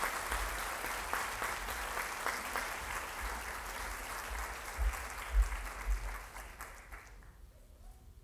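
Audience applauding, with a few dull low thumps about five seconds in; the clapping fades and stops about seven seconds in.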